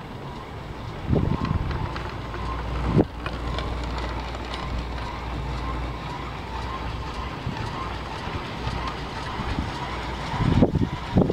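Riding a 1974 Marchisio two-seat chairlift: a steady low hum from the moving line, with wind on the microphone and a few short thumps. Near the end a choppy clatter starts as the chair's grip rolls over the CCM sheave train of a tower.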